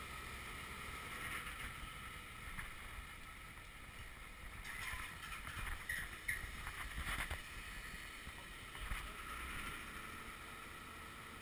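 Excavator's diesel engine running steadily in the background as a low rumble, with wind noise on the microphone and a few light knocks and scuffs midway.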